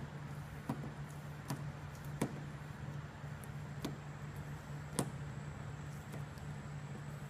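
A few sharp ticks at irregular intervals as a vinyl stencil is picked and peeled by hand off a Plasti Dip-coated car panel with a snap-off utility knife at hand, over a steady low hum.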